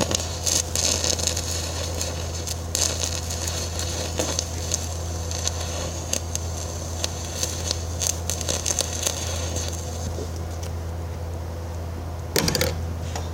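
Low-amperage stick-welding arc from a carbon gouging rod run together with a 7018 rod on reverse polarity (the two-stick 'poor man's TIG' method on thin steel), crackling and spitting irregularly over a steady low hum. The crackling dies down about ten seconds in, and a short loud scrape follows near the end.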